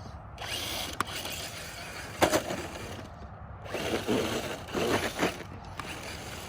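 Traxxas TRX-4 RC truck's electric drivetrain revving in repeated bursts, its tires grinding on hard, icy snow and rubbing on the body, as the truck sits stuck. It surges loudest about two seconds in and again near the middle.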